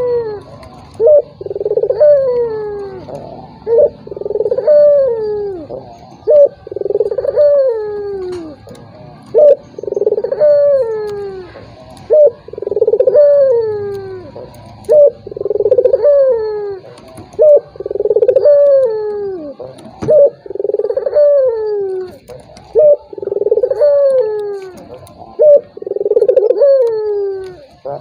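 Ringneck dove (puter) cooing over and over, a phrase about every two and a half seconds: a short sharp note, then a longer coo that slides down in pitch.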